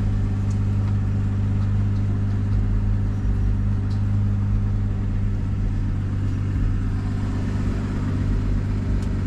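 BMW M340i's B58 3.0-litre turbocharged inline-six idling steadily, with an even, unchanging engine note.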